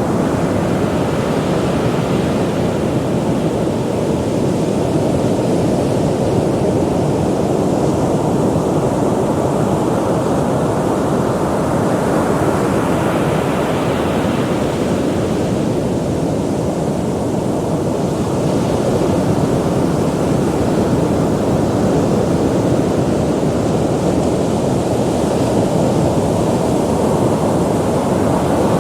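Ocean surf: a steady, deep rush of breaking waves, with a brighter wash swelling up about halfway through. Wind on the microphone adds to the low rumble.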